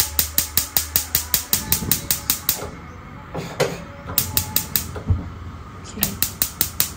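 Battery-powered spark igniter of a gas hob clicking at about five clicks a second while the knob is held in, stopping and starting again twice because the burner has not caught yet and the gas is still coming through. A single low thump about five seconds in.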